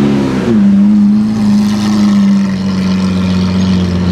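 Lamborghini Aventador's V12 engine running at low revs with a steady, even note. There is a slight rise and fall in pitch at the start.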